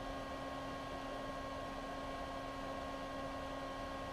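Small blower fan of a smoker temperature controller running on the desk: a steady hum with a few fixed tones over a soft hiss.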